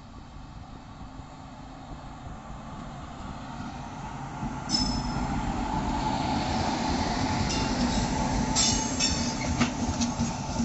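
WAG9HC electric locomotive hauling a goods train of BCNA covered wagons past at close range. The rumble of the approaching train grows steadily louder, and from about five seconds in come high-pitched wheel squeals and a run of sharp wheel clacks over the rails as the locomotive's bogies go by.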